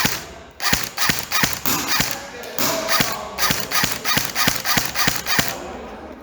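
Quick footsteps and rustling of clothing and gear as an airsoft player moves fast on foot, with irregular thumps about three a second.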